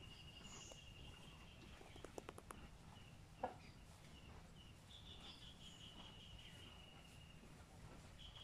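Faint, high-pitched insect trill, steady in pitch and finely pulsed, running for several seconds and pausing briefly near the end. A few soft clicks sound about two seconds in, and a single knock comes a little after three seconds.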